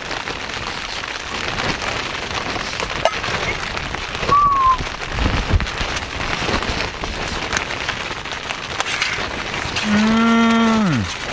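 Rain pattering on the tent fabric. Near the end comes one held low hum, about a second long, that falls in pitch as it ends.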